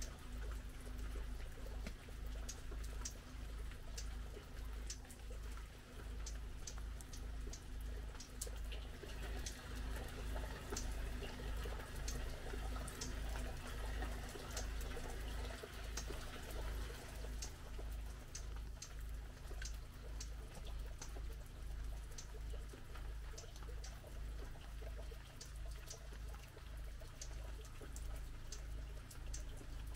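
Light rain dripping and pattering, many separate drops ticking irregularly over a soft hiss, with a low rumble underneath.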